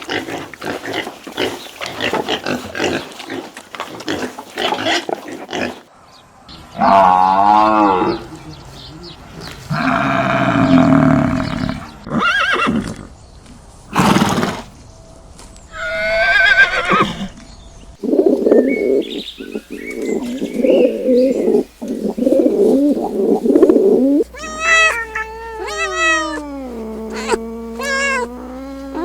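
A series of different farm animal calls, one after another, each lasting a second to a few seconds, some with a wavering pitch. Near the end come several cat meows that fall in pitch.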